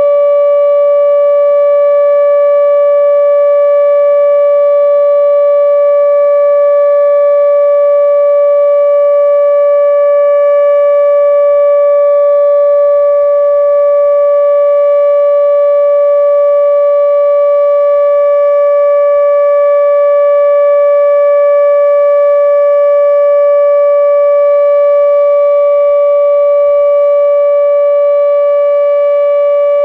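ATI HPSS-32 electronic nuclear-plant warning siren sounding its steady alert tone: one loud, unwavering pitch with a stack of overtones and no rise or fall.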